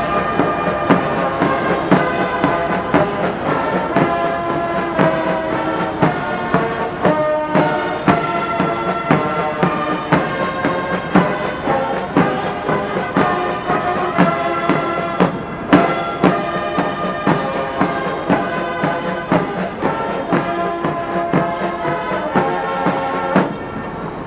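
Military brass band playing a march, full brass with a steady drum beat; the music breaks off near the end.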